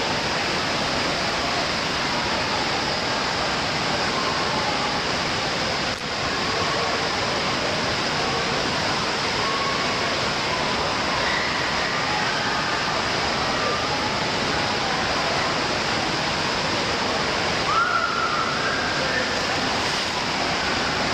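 Indoor water park din: a steady rush of running water with children's distant shouts and chatter echoing over it. One child's voice rises sharply near the end.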